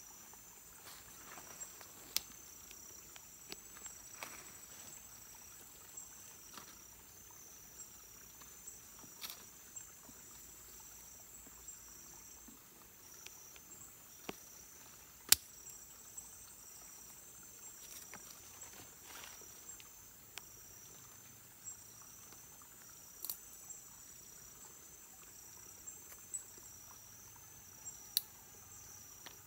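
Steady high-pitched insect chorus of the tropical forest, with scattered sharp clicks and snaps from sticks and snare wire being handled and set, the loudest about halfway through.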